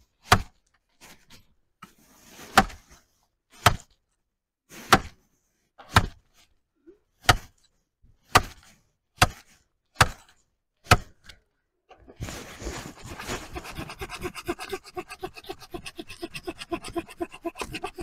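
A hatchet chopping a dead log for firewood: about ten sharp wooden strikes, roughly one a second. Then, about two-thirds of the way in, a steady fast rasping as a small hand saw cuts into the wood.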